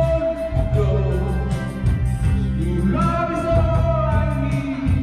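Music with singing: a voice holds long notes over backing instruments and a steady bass.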